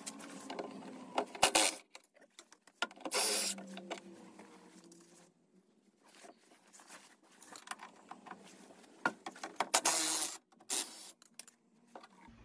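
Hand-tool work on a seized rear shock absorber bolt of a VW Beetle: scattered metallic clicks and clanks from a socket and extension on the mount. Two short, loud bursts of rattling noise come about three seconds in and again near the end.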